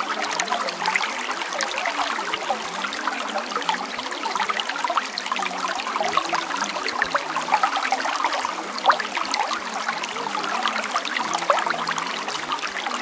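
Steady running water with a continuous bubbling trickle, like a small stream.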